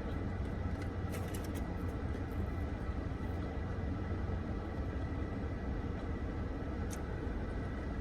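Steady low hum of a car's air conditioning running, heard inside the cabin, with a faint steady whine and a few soft clicks about a second in and near seven seconds.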